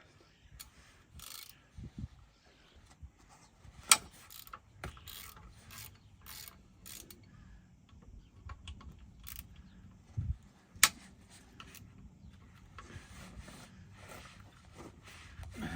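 Socket ratchet clicking in short runs as sump bolts are undone, with scattered metal tool clinks. Two sharp metallic knocks stand out, about four seconds in and again near eleven seconds.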